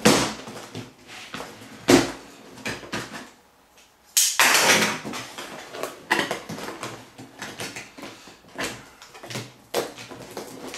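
A large cardboard box being handled on a table: a series of thumps and bumps as it is turned over and set down, with cardboard rubbing and sliding. The loudest bump comes about four seconds in and runs into a second or so of scraping.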